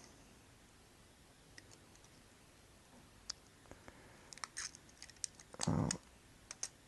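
Small sharp clicks and ticks of a plastic iPhone touch-screen panel being handled and worked at with the fingers. A brief, louder handling noise comes about two-thirds of the way in.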